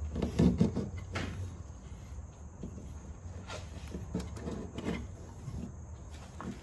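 Scattered clicks and knocks, a few sharper ones about half a second in and around the middle, over a steady low hum: tools and metal parts being handled while working on a car.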